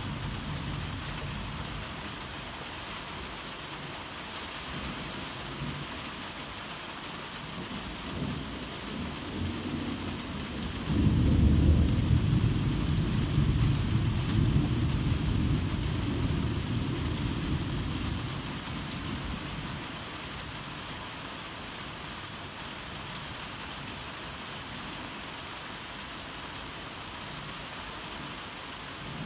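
Heavy rain falling steadily, with a roll of thunder: a low rumble builds, breaks out loudly about eleven seconds in, then rumbles away over the next several seconds.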